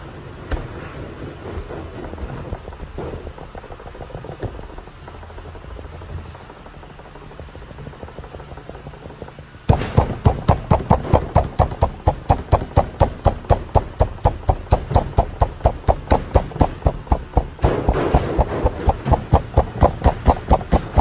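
Palm slapping and patting a long log of bread dough on a table in a rapid, even rhythm, about four or five slaps a second, starting about ten seconds in. Before that, soft dough-handling noises over a steady low hum.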